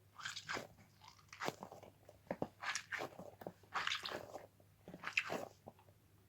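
Stress ball squeezed by hand, giving a crunching, crackling sound in repeated bursts about once a second.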